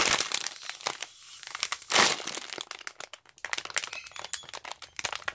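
Clear plastic packaging crinkling and crackling as hands squeeze a Kiibru Colossal Bread foam squishy sealed inside it. The crackles are irregular, and the loudest comes about two seconds in.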